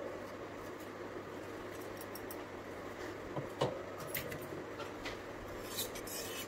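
Faint clicks and scrapes from handling a small stainless-steel mixer-grinder jar as it is lifted off the base, its lid removed and the ground makhana taken out, with one sharper click about three and a half seconds in, over a low steady hum.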